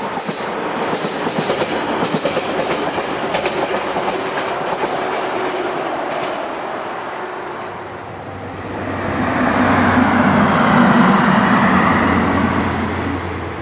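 A train passing close by: wheels clicking over rail joints for the first several seconds, then a louder steady rumble with a low drone from about nine seconds in, dropping away at the very end.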